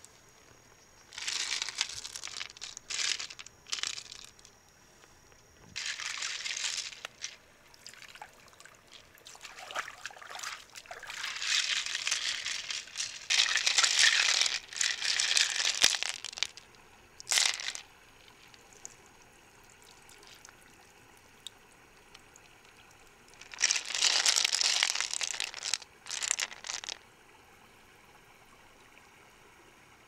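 Water pouring and splashing in four spells of a few seconds each, with quiet gaps between.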